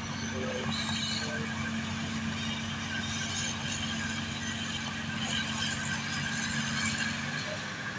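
New Holland self-propelled forage harvester chopping maize for silage, its engine and cutterhead making a steady drone along with the tractor pulling the trailer alongside, with scattered faint high squeaks over it.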